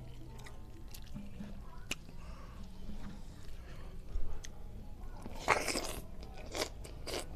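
Mouth sounds of a person eating rice, water spinach and sambal with the fingers: small wet chewing clicks, then, about five seconds in, a loud sucking slurp lasting under a second as a handful of food goes into the mouth, followed by three shorter ones.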